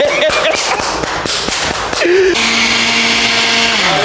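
Electric blender motor switched on, running at a steady pitch for about a second and a half, then spinning down just before the end. Before it come scattered knocks and brief voices.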